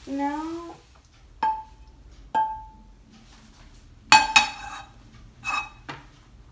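A short pitched sound, then a wooden spatula knocking against a frying pan and a ceramic plate as scrambled eggs are served: two single ringing clinks, then a louder double knock about four seconds in and a few lighter knocks after it.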